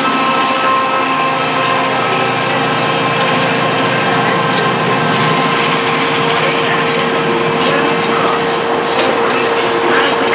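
Chiltern Railways Class 68 diesel locomotive under power, drawing away with its train, while the passing coaches rumble along the track with a steady tone. From about halfway through, the coach wheels click over rail joints.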